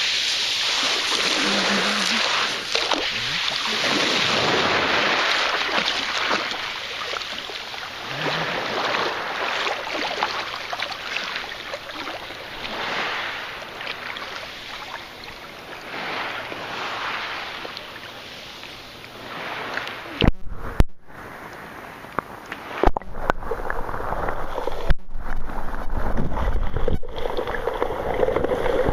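Sea waves washing onto the shore, a rushing noise that swells and falls back every few seconds. In the last third there are several sharp clicks and a low rumble.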